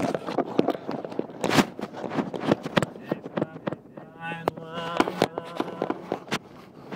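Sharp, irregular clicks and knocks through the whole stretch. From about four seconds in, a man's wordless vocalizing with a wavering pitch joins them over a steady low hum.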